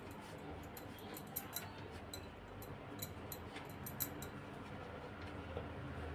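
Faint, scattered light clicks and ticks, several a second, as hands twist a ghee-coated, pleated strip of dough into a rope on a wooden chopping board.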